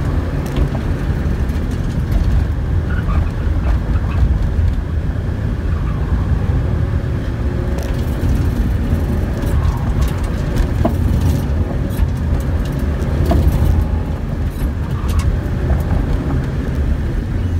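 Ford Festiva's four-cylinder engine and road noise heard from inside the cabin, the car pushed at speed through an autocross course. A steady, loud low rumble runs through it, with scattered short clicks and rattles.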